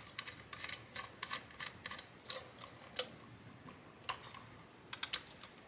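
Light, irregular clicks and taps, a few a second, from a finned extruded aluminium power-supply housing and its wires being handled and shifted on a silicone work mat.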